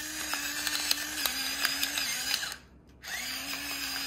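Electric pepper grinder running: a steady small-motor hum with crackling as the peppercorns are ground. It stops about two and a half seconds in and starts again half a second later.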